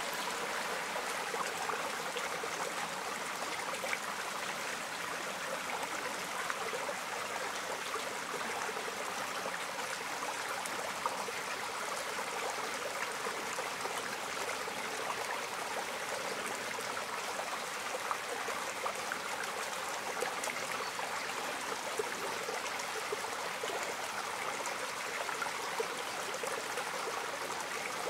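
Small forest stream trickling over stones: a steady rush of water with small splashes scattered through it.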